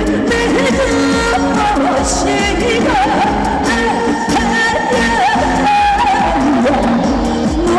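Live trot song over a loudspeaker system: a woman singing a wavering melody over a full backing track.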